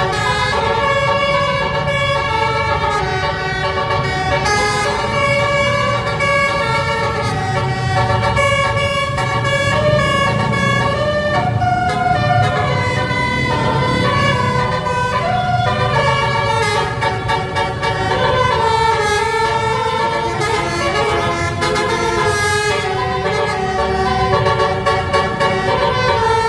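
An 18-trumpet basuri bus air horn, roof-mounted, playing a telolet melody: several horn tones sounding together and stepping from note to note without a break, over a low rumble.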